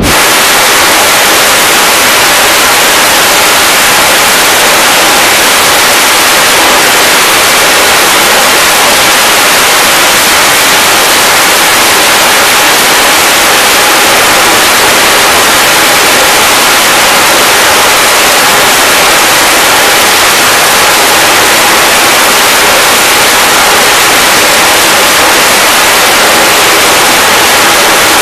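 Twin jet engines of an F/A-18 held at full afterburner on a carrier catapult, waiting to launch: a loud, steady rushing noise that stays unchanged throughout.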